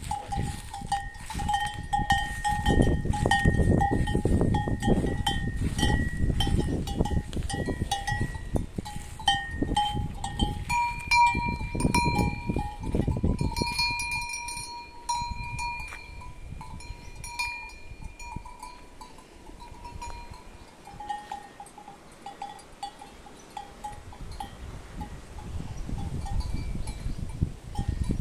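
Cattle bells clanking over and over as cows feed, a lower-pitched bell at first, then a higher one for several seconds in the middle, then the lower one again. Loud crunching and munching of cattle eating dry feed comes close by near the start, again in the middle and near the end.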